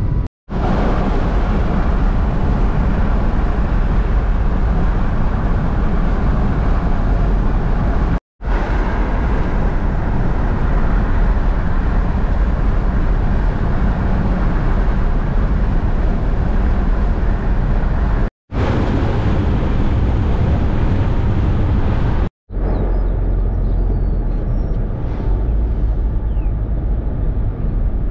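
Steady road and engine noise inside a moving car's cabin, broken by brief silent edit cuts about 8, 18 and 22 seconds in; after the last cut the noise sounds duller.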